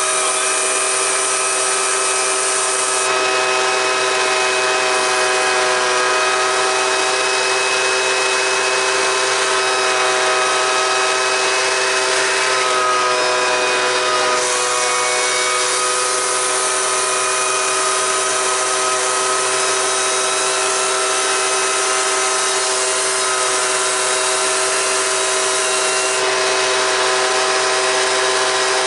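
Homemade turbo stove, a turbocharger mounted on a wood-fired barrel stove, running: a loud, steady rush of air with a high, steady multi-tone whine.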